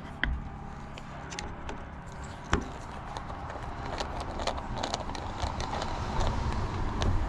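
Small metal clicks and ticks as screws are worked out of a wood lathe tailstock with a T15 Torx driver. There is one sharper click about two and a half seconds in and quicker runs of ticks in the second half.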